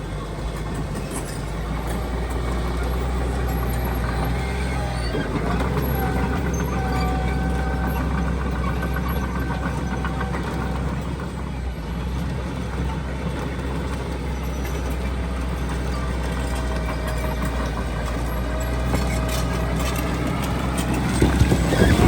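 Heavy diesel earthmoving machinery running steadily under load, with a faint whine that comes and goes. A louder, noisier burst comes near the end.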